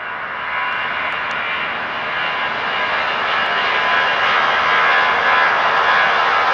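Four-engine Airbus A340 jet airliner on its takeoff roll. The engines give a broad rushing noise with a faint steady whine in it, growing steadily louder as the aircraft passes.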